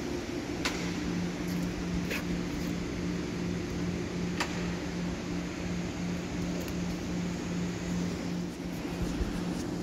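Dust extraction system's extractor fan running steadily with a low hum. A few faint clicks sound over it.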